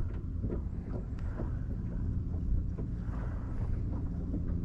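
Wind blowing across the microphone over open water, with a low steady hum that grows stronger near the end and a few light ticks.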